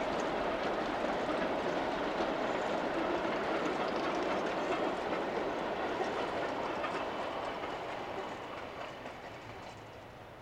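Gravity slate train, a long string of narrow-gauge slate wagons coasting downhill with no locomotive, rolling with a steady clatter of wheels on the rails. The sound fades over the last few seconds as the wagons go away.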